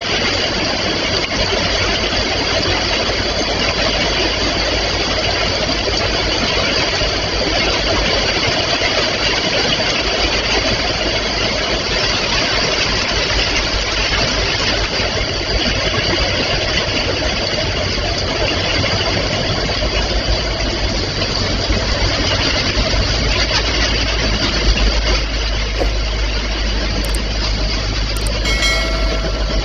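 Heavy rain pouring down, under the low, steady drone of a steel river barge's diesel engine, which grows louder about two-thirds of the way through as the barge passes close by. A short chime sounds near the end.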